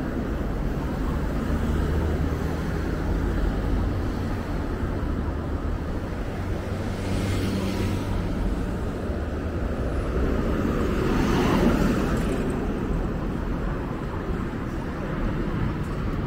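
Road traffic: a steady engine hum with vehicles passing, one swelling about seven seconds in and a louder one that builds and fades around eleven to twelve seconds in.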